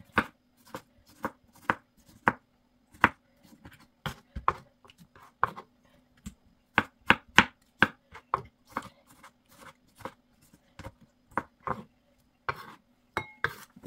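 Kitchen knife dicing a tomato on a wooden cutting board: a run of sharp, uneven knocks, a few a second, with a short pause about six seconds in.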